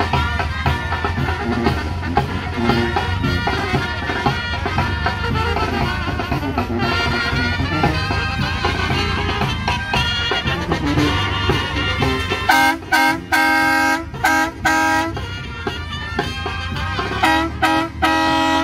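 Banda brass band music with a steady bass line, joined about two-thirds of the way in by a vehicle horn honking in a series of short and longer blasts, with a few more honks near the end.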